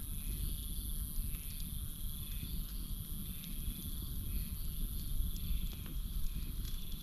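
Campfire burning with a low rumble and scattered sharp crackles. Night wildlife calls behind it: a repeated call about once a second and a steady high-pitched drone.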